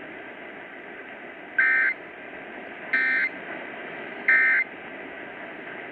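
Emergency Alert System end-of-message data bursts: three short, identical buzzing data tones about a second and a half apart, marking the end of the alert, over a steady hiss.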